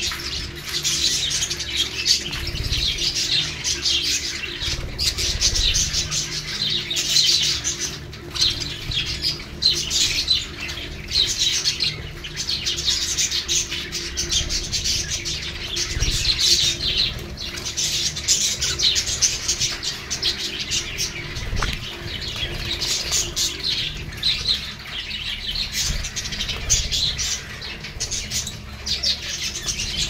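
A flock of budgerigars chattering continuously, a dense mix of warbles and chirps, with wings flapping now and then as birds flutter close by.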